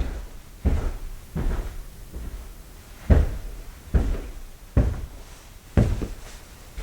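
Footsteps of a person walking at a slow, uneven pace on tile and carpet flooring: about eight heavy, thudding steps, with a longer pause after the third.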